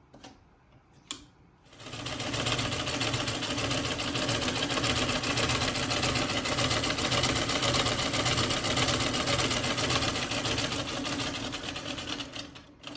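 1900 New Domestic treadle vibrating-shuttle sewing machine sewing lockstitch: a rapid, steady mechanical clatter starts about two seconds in and runs for some ten seconds before tapering off near the end. A couple of light clicks come before it starts.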